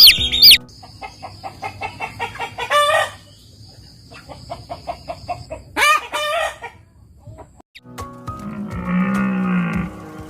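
Chickens clucking in quick pulses, with a rooster crowing twice in short loud calls. A cow starts mooing, deep and drawn out, about eight seconds in.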